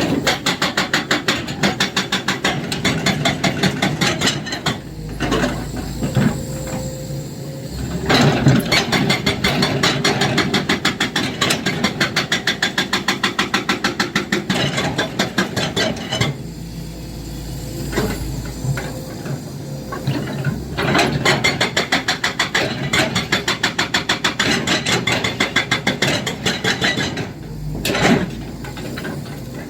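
Excavator-mounted hydraulic breaker hammering in rapid, evenly spaced blows, in long bursts. The hammering pauses for a few seconds about five seconds in, again around sixteen seconds, and briefly near the end, leaving the excavator's engine running.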